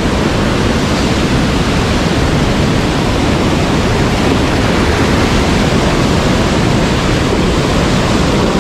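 Rushing water of a mountain stream, a steady loud rush that does not let up.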